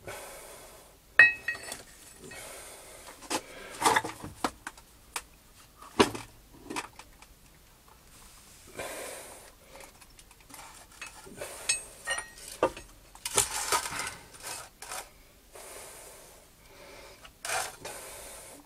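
Steel and cast-iron drill-grinder parts being handled and set down: scattered clanks, knocks and scraping, with a ringing metal clink about a second in.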